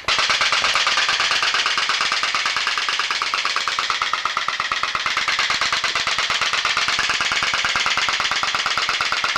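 Diaphragm-type putt-putt (pop-pop) boat steam engine, a seven-tube version, running flat out with a loud, rapid, even popping.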